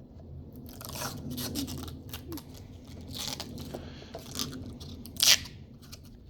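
Irregular scraping and crunching from hand work fitting excavator window parts, in a few separate strokes. The sharpest and loudest comes about five seconds in.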